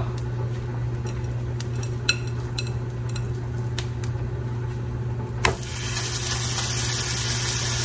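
Light clicks and taps of a glass bowl being handled over a steady low hum. About five and a half seconds in, a raw ground-beef patty goes into hot olive oil in a large pot and starts sizzling steadily as it begins to sear.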